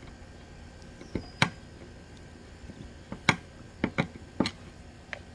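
Scattered sharp clicks and taps, about seven in all, as the parts of a generator inlet box are handled and fitted together by hand.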